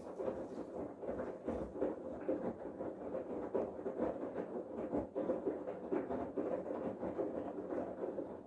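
Bosch Serie 8 front-loading washing machine in its main wash: the drum turning, with water sloshing and wet laundry tumbling. The sound stops suddenly near the end.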